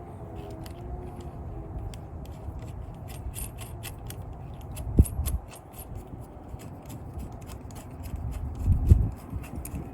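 Many quick small metal clicks from handling a combination storage-compartment lock and its parts during fitting, with one sharp knock about five seconds in and a heavier bump near the end.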